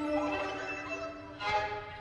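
Live chamber music led by bowed violins, several sustained notes held together, with new notes entering about one and a half seconds in.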